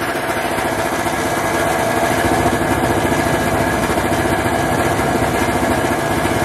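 Snowmobile engine running steadily, growing louder over the first couple of seconds and then holding.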